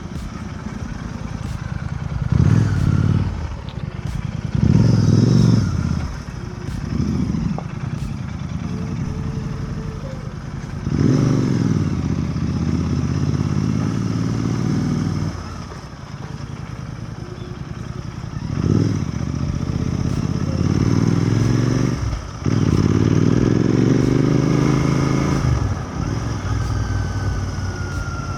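Royal Enfield Continental GT 650's parallel-twin engine under way. Its note swells and falls back again and again as the throttle is opened and closed, with a short drop about three-quarters of the way through, like a gear change.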